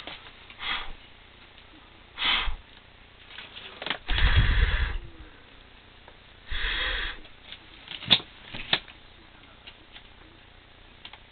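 A person sniffing and breathing close to the microphone: a few short sniffs, with a longer, louder breath about four seconds in. Two sharp clicks follow near the end.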